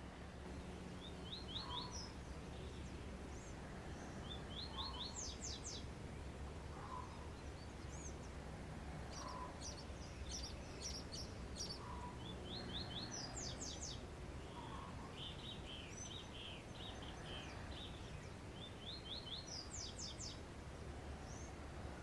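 A sanhaço tanager (Thraupis) singing: short runs of four or five quick, high, thin notes, repeated every few seconds, over a steady low background rumble.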